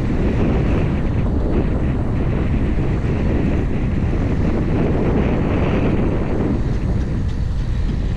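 Wind buffeting the microphone of a bicycle-mounted camera while riding, a loud, steady low rumble.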